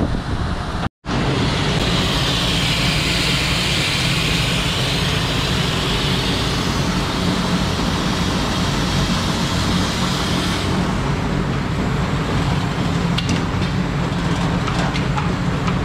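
DeLaval robotic milking stall running: a steady mechanical hum with a hiss over it that drops away about eleven seconds in, then a few light clicks near the end as the robot arm works under the cow.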